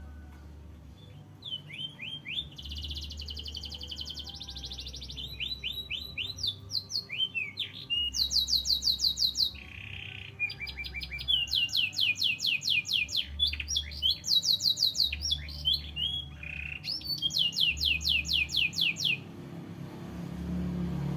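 Domestic canary singing at full stretch: long runs of fast, high trills and rolls broken by short chirps, a varied song stuffed with learned phrases. It stops about two seconds before the end, leaving a low rumble.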